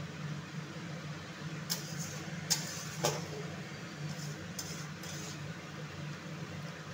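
Spatula clinking and scraping against a metal kadai while stirring a thin curry: about six short, sharp clinks, the loudest about two and a half and three seconds in. A steady low hum runs underneath.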